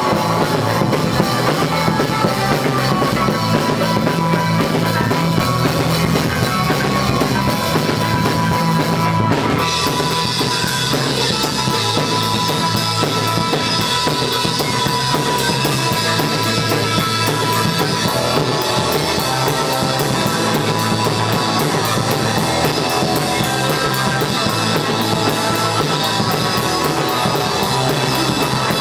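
A rock band playing live at full volume, with drum kit, bass and guitars. About nine seconds in, the top end turns brighter and busier and stays that way.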